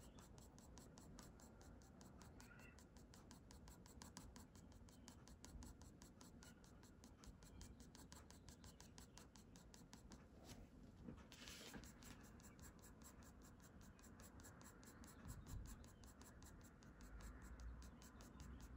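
Graphite pencil scratching faintly on drawing paper in many short, quick strokes, the flicking strokes of shading fur.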